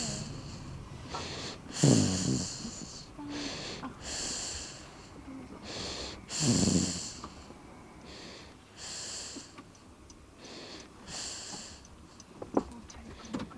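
A sleeper snoring: wheezy, hissing breaths in a slow steady rhythm, with two loud rattling snores, about two seconds in and about six and a half seconds in. The breathing grows fainter near the end, where there is a short click.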